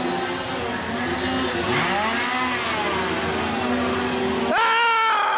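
Chainsaw engine running and revving, its pitch swinging up and down, then going loudest and highest about four and a half seconds in.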